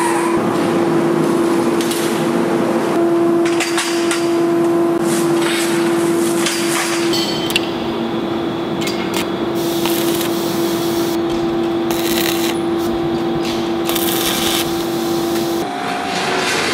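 Steady machine hum in a metalworking shop, joined from about halfway by a series of short hissing bursts of an arc welding torch as a worker tack-welds steel bars held in a jig. Near the end the hum stops and a different machine sound starts.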